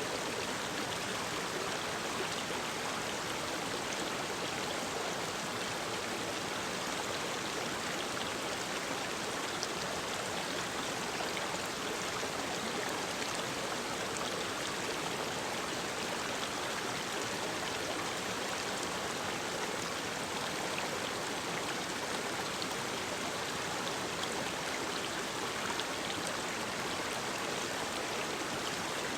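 Mountain stream water running steadily, an even rushing hiss with no pauses or changes.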